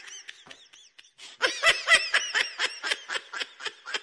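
A person laughing: a quick run of short laughs, louder from about a second and a half in.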